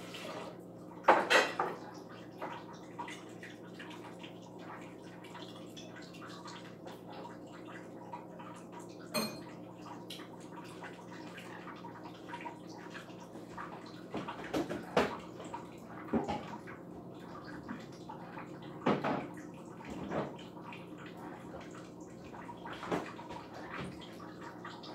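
Dishes and cutlery clinking and clattering lightly every few seconds during a meal, over a steady low hum.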